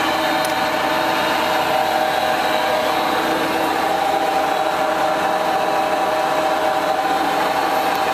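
Toolmex TUR 630M engine lathe running in low range, its geared headstock and feed gearing giving a steady mechanical hum with a few held tones.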